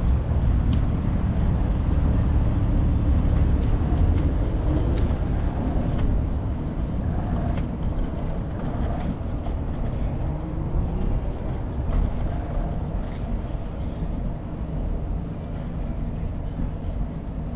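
Steady low rumble of wind and road noise on a camera carried on a moving bicycle, with a few faint clicks.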